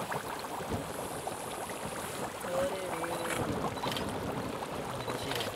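Natural gas seeping up through muddy water in a small pit, bubbling with a dense crackle of small pops. A voice is heard faintly about halfway through.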